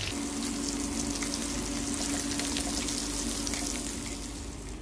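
Breaded fish fillets frying in hot oil in a pan: a steady crackling sizzle with a steady low hum underneath that stops near the end.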